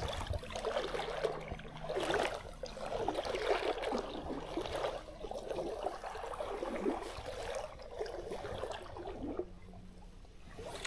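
Shallow stream water running and gurgling, swelling and easing unevenly.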